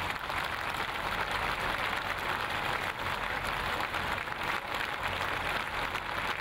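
Large crowd applauding steadily, a dense even patter of many hands clapping.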